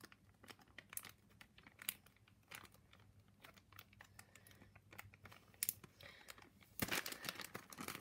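Thin plastic bag crinkling as it is handled and folded around an egg to seal it: scattered faint crackles, growing louder and denser about seven seconds in.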